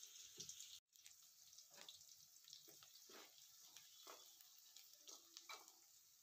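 Sliced onions frying in hot oil in a metal kadai: a faint steady sizzle with scattered crackles and pops, as a spoon stirs them. The sound drops out briefly just under a second in.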